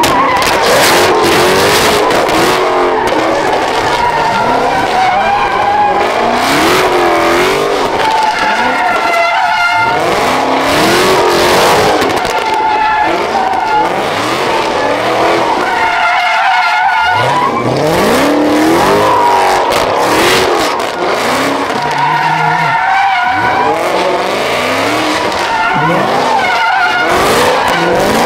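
A car doing burnouts in a pit, its engine revving up and falling back over and over while the tyres spin and squeal against the pavement.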